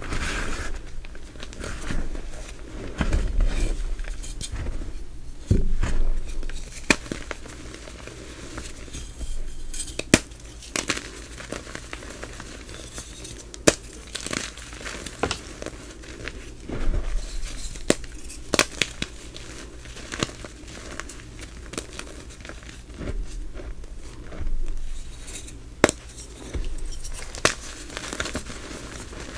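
Hands crushing and crumbling gym chalk and reformed chalk pieces in loose powder. The crunching is soft and dusty, with sharp snaps scattered through it as firmer pieces break.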